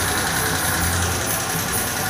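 Steady hiss of compressed air from a paint spray gun laying clear coat on car bodywork, over a low machine hum that swells and drops.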